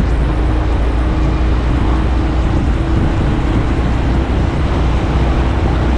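Motorcycle cruising steadily at road speed, picked up by a camera mounted on the bike: steady wind rush over a low engine drone, with a faint constant hum.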